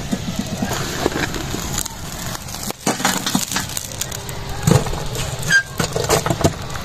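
Burning charcoal and embers dropped and pushed about on a metal pot lid with a long-handled metal spoon: irregular clatters, scrapes and crunches of the coals. The coals are being heaped on the lid to cook the pulao on dum.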